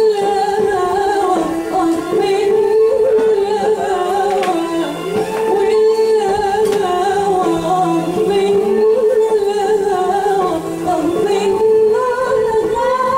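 Music with a singing voice holding long, wavering, ornamented notes over a steady accompaniment.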